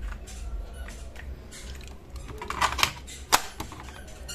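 Hands handling a Videocon Walky KT-3115 cassette Walkman, with scattered plastic clicks and rattles and one sharp click about three seconds in as a key on top is pressed, over a low steady hum.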